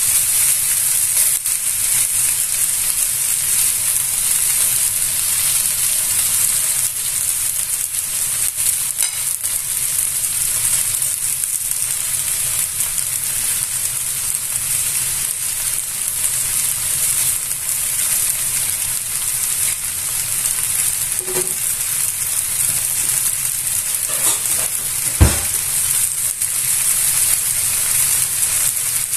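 Lamb ribs sizzling in a Saladmaster electric skillet, a steady high frying hiss. Near the end there is one sharp knock.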